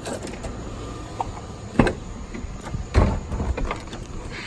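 Several sharp knocks and thuds, the two loudest about two seconds and three seconds in, over a steady low rumble.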